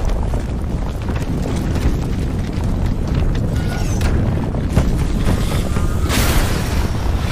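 Film sound effects: a deep continuous rumble with scattered knocks, and a brief rushing blast about six seconds in as a rocket-like craft erupts in debris and light.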